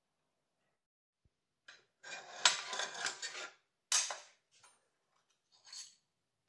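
Metal spirit burner tray of a model steam engine sliding and scraping out from under the boiler across a stone tabletop, a rattle of about a second and a half. It is followed by a sharp metallic clank and a few lighter metal clicks as the burner's parts are handled.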